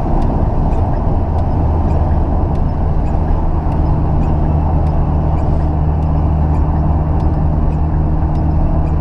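Square-body VW Gol's 1.6 CHT four-cylinder engine cruising steadily at highway speed, heard from inside the cabin as a constant low hum mixed with tyre and road noise on a wet road.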